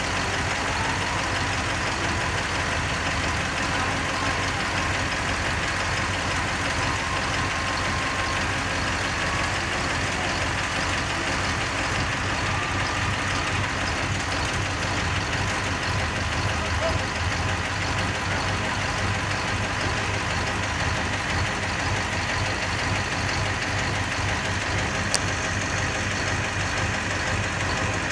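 Heavy vehicle engine running steadily, typical of a crane truck idling while it hoists a load, with a single sharp click near the end.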